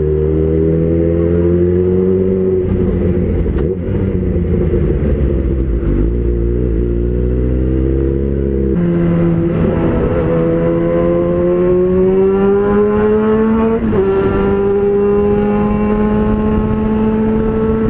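Yamaha XJ6 inline-four with a full Jeskap aftermarket exhaust, heard riding: a loud, steady exhaust note whose pitch climbs slowly, with a sudden change in the note about nine seconds in and a smaller one near fourteen seconds.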